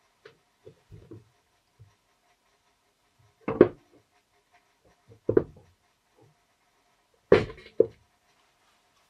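Three sharp knocks about two seconds apart, the last followed closely by a smaller one, with a few faint ticks before them over a faint steady hum.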